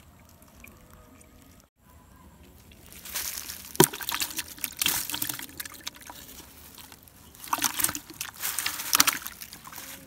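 A small caught fish thrashing in a plastic bucket with a little water, splashing in two spells, the first starting about three seconds in, with a sharp knock against the bucket near the start of it.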